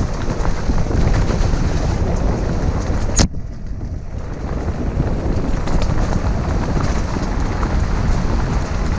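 Wind buffeting the camera microphone, mixed with the rattle and tyre noise of a bike rolling fast down a rough dirt trail. A sharp click a little over three seconds in; the hiss then goes dull for about a second before building back.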